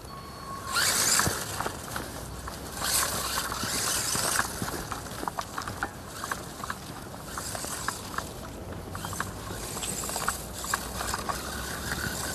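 Footsteps crunching and rustling through dry grass and fallen leaves, with an electric RC truck on 3D-printed tyres driving over the lawn.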